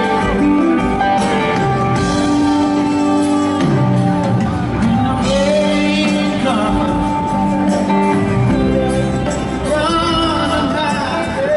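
Live blues-rock band playing with electric guitars, drums and Hammond organ, heard from the audience seats of a large venue.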